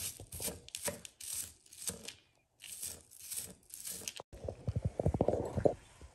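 Kitchen knife dicing an onion on a plastic cutting mat: crisp slicing strokes about twice a second, then a quicker run of short strokes about four seconds in.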